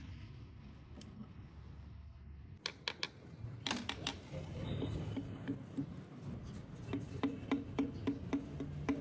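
Metal tools and engine parts clinking and knocking a few times, then from about seven seconds a steady beat of background music begins.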